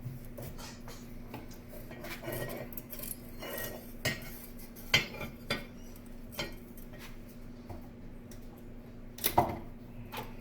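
Irregular metallic clinks and rattles from a steel-cable anvil hold-down and its clamp hardware being worked, with a few sharper knocks about four, five and nine seconds in. The cable is snagging at the bottom of its travel.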